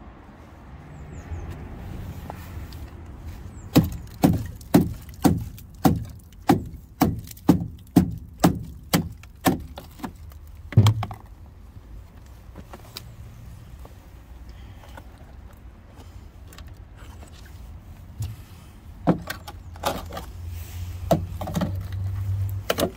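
Hammer striking the rusted steel sill of a Talbot Express campervan: a run of about a dozen sharp knocks, about two a second, then a few irregular knocks near the end. The metal is rotten through, and the blows break away rust.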